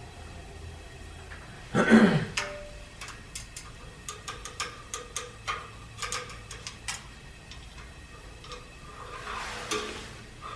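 A scrap-wood fire newly lit in a steam boiler's firebox crackling and popping, with irregular sharp cracks. A louder knock comes about two seconds in, and a brief rushing swell comes near the end.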